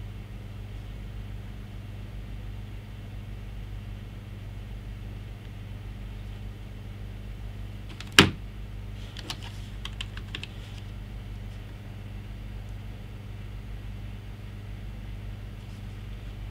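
Keystrokes on a computer keyboard navigating a BIOS menu: one sharp knock a little past halfway, then a quick run of key clicks, and a few more near the end. A steady low hum runs underneath.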